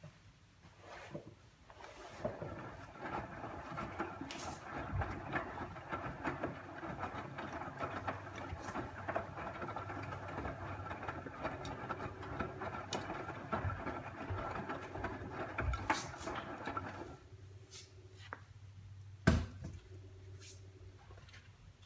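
A motor-driven machine runs steadily for about fifteen seconds, with a whine of several held tones and scattered light clicks, then stops suddenly. A single sharp knock follows a couple of seconds later.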